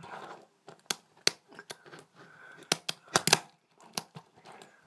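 Tech Deck fingerboard being ollied with the fingers: the plastic tail popping on the surface and the wheels landing make a series of sharp clacks. The clacks come about a second apart, with a tight cluster about three seconds in.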